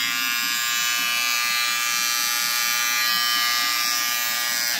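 Wahl Cordless Detailer trimmer running steadily with its blade fitted back on the cam follower: an even electric buzz with a high whine, starting and stopping abruptly.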